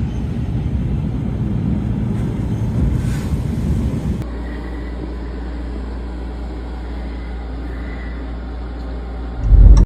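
Low rumbling vehicle noise, the kind heard from a car driving in a snowstorm. About four seconds in it cuts abruptly to a steadier low hum, and a brief loud low thump comes just before the end.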